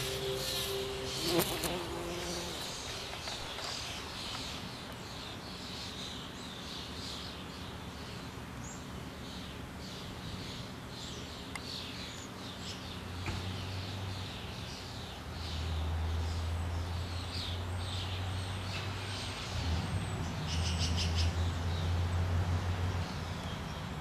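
Outdoor garden ambience: small birds chirping again and again, with a low bumblebee buzz that comes and goes in the second half. The last chiming notes of music die away in the first couple of seconds.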